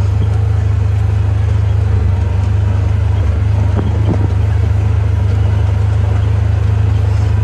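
Motor vehicle running steadily while being driven, a constant low rumble with no change in speed.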